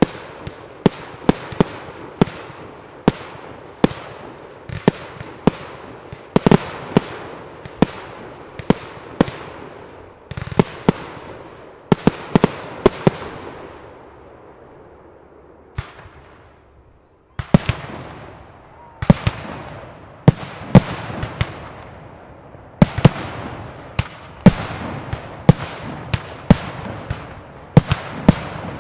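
Aerial fireworks bursting in steady succession, sharp bangs about one to two a second, each with an echoing tail. There is a short lull just past the middle with one faint bang, then the bangs start again.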